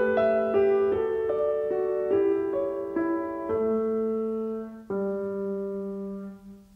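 Background piano music: a melody whose notes change about every half second at first, then slow to long held notes that fade near the end.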